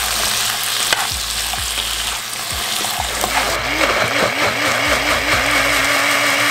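Diced vegetables sizzling in a frying pan as they are stirred, with a clack or two of the utensil. About three seconds in, a personal-size cup blender starts up on tomato and chipotle sauce, its motor pitch wobbling up and down several times before settling into a steady whine as the sauce turns liquid.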